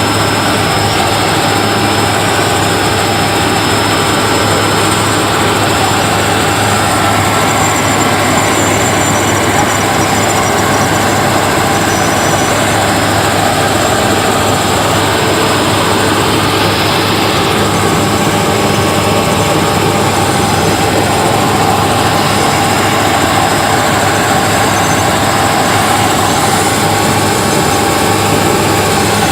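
Helicopter in flight, its engine and rotor making a loud, steady noise with a strong low hum.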